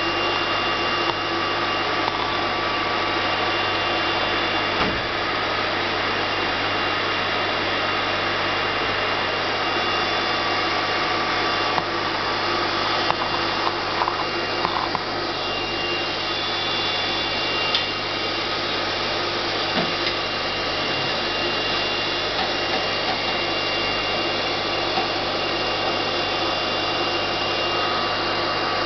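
Steady hum and hiss of running aquarium equipment, with a few faint clicks about halfway through.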